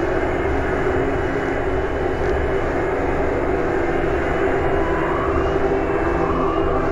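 Noise music: a dense, steady wash of distorted noise with a low drone tone held underneath, and no beat.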